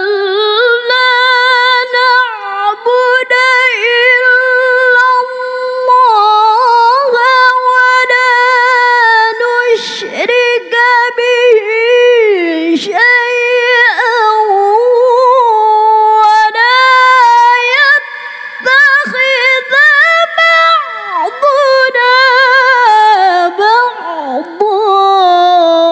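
A woman reciting the Quran in melodic tilawah style: one long, high, heavily ornamented sung phrase with wavering runs and gliding turns, held on drawn-out vowels.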